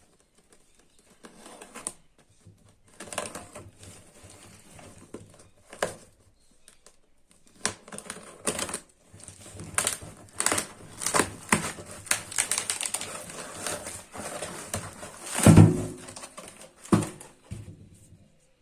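Packaging and a peanut butter jar being handled and opened by hand: a run of irregular clicks, taps and crinkles, busiest in the middle, with a louder knock about fifteen seconds in and another soon after.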